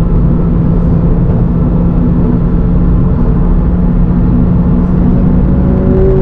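2022 Subaru BRZ's 2.4-litre flat-four engine, fitted with aftermarket headers, running at a fairly steady speed under way with a constant low drone. A higher tone joins it about five seconds in.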